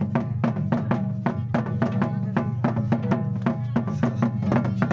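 Live folk drumming on hand-played double-headed barrel drums: a fast, steady rhythm of sharp strokes over sustained tones.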